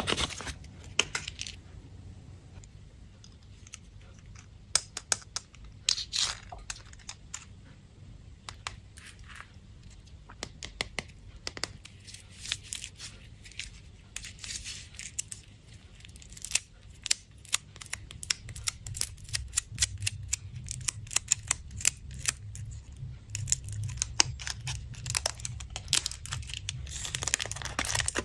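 Candy wrappers being crinkled and torn open by hand: irregular sharp crackles and clicks, in bunches with short pauses between them.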